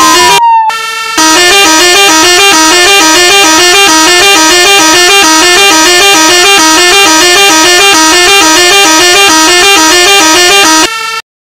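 Electronic emergency-vehicle siren from a phone siren app. A slow wail dies away about half a second in, and a brief steady tone follows. Then a fast, repeating up-and-down siren pattern plays loudly until it cuts off abruptly near the end.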